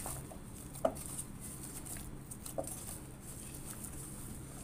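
A hand kneading soft, oiled maida dough in a steel vessel: quiet pressing and squishing, with two light knocks against the pot, one about a second in and one past two and a half seconds.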